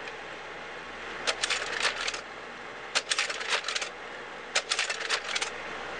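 Three short runs of rapid, clattering clicks, each lasting about a second, over a steady hiss.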